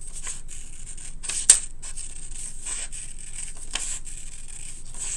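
Small craft scissors cutting paper in a series of short, irregular snips as they work around a circle, with one sharper, louder snip about a second and a half in.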